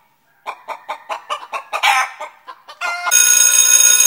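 Chicken clucking in a quick run of short calls, then a bell-like ringing tone starts suddenly about three seconds in and holds.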